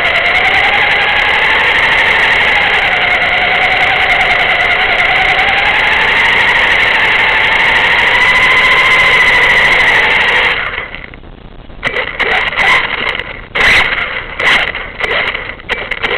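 The small motor of a floor-level vehicle carrying the camera runs with a steady whine whose lower pitch wanders up and down. After about ten seconds it cuts out, then gives several short bursts.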